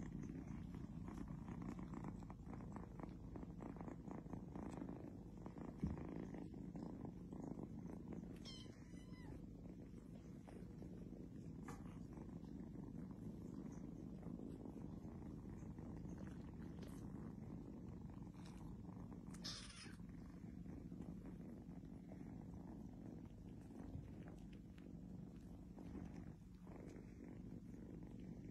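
Kittens purring, a steady low rumble. A single sharp tap comes about six seconds in, and a few brief rustles later on.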